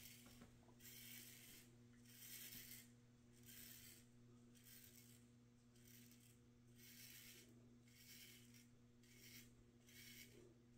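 Gem G-Bar single-edge safety razor scraping through neck stubble against the grain, in short faint strokes about once a second. A steady low hum runs underneath.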